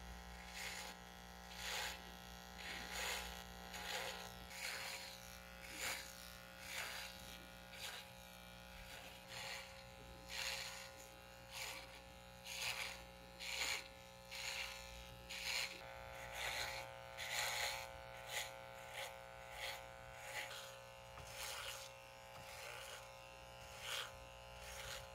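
An electric shaver buzzing steadily while being drawn through a long, full beard, with a rasping swell roughly once a second on each stroke.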